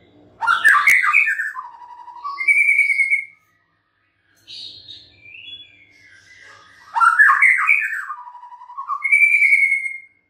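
White-rumped shama singing two nearly identical loud phrases. Each is a quick tumbling run of notes that drops to a few lower notes and ends in a clear, held whistle. Softer notes come in between.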